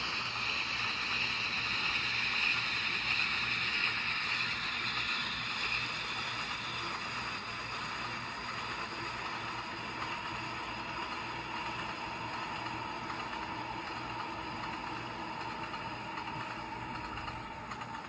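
Ride noise of a moving Santa Fe caboose, heard from inside: a steady rushing noise with a low hum underneath, easing gradually quieter after the first few seconds.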